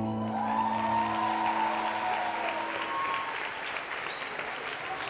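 Congregation applauding and cheering, with a few voices calling out, as the last held chord of the music fades out in the first second or so. A high whistle sounds near the end.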